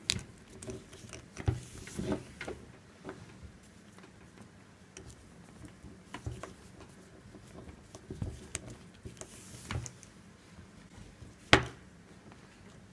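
Nylon paracord strands rubbing and rustling as they are worked by hand into an eight-strand round braid, with scattered soft taps and one sharp click near the end.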